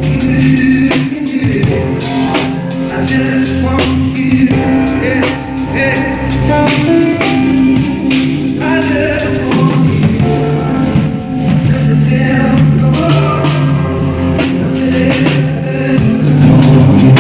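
Live band soundcheck: drum kit, bass and keyboard playing a slow song together, with a voice singing over them.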